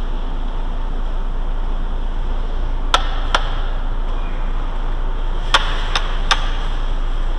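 Five sharp clicks: two close together about three seconds in, then three more about two seconds later, over a steady rushing noise.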